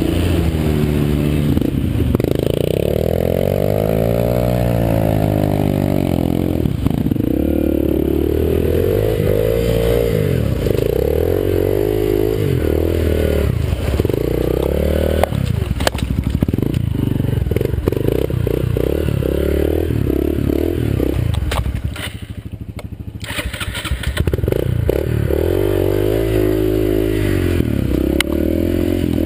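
Yamaha TT-R125 dirt bike's small single-cylinder four-stroke engine revving up and down over and over as it rides through mud, with rattles and knocks from the bike. The engine drops away briefly about three quarters of the way through, then picks up again.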